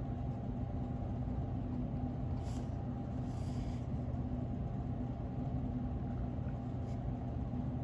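Steady low mechanical hum holding a few fixed tones, with faint scratchy strokes of a coloured pencil on paper a couple of seconds in.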